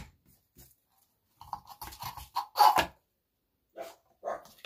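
Ribbon and its spool being handled on a wooden bow maker over a cutting mat: short bursts of scratchy rubbing and rustling, the loudest a little under three seconds in.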